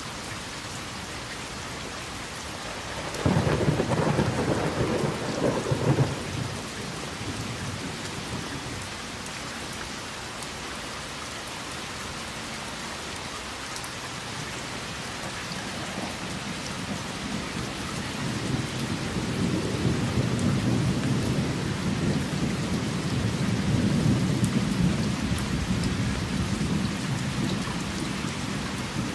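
Steady heavy rain falling, with a sudden sharp clap of thunder about three seconds in that crackles on for about three seconds. In the second half a long, low rumble of thunder slowly builds and fades under the rain.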